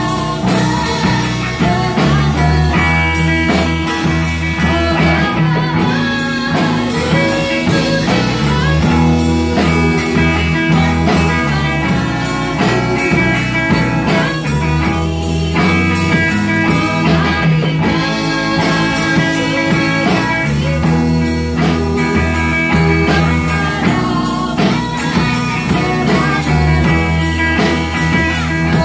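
A live rock band playing an instrumental passage: electric guitar over a steady drum-kit beat.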